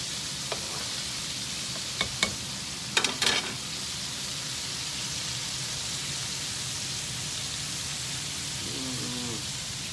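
Chicken pieces deep-frying in hot oil in a frying pan, a steady sizzle, with a few sharp knocks about two and three seconds in.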